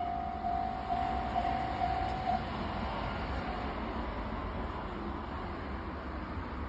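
Railroad crossing alarm ringing in a steady pulsing tone that stops about two seconds in, as the crossing clears. A low rumble of passing rail traffic runs underneath.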